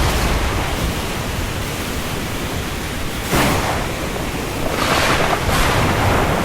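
Rain falling on the open sea with waves, a steady rushing hiss. Two waves swell louder, the first coming in suddenly about halfway through and the second near the end.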